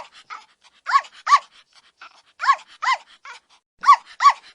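Dog barking: short, high-pitched yaps, mostly in pairs, about one pair every second and a half.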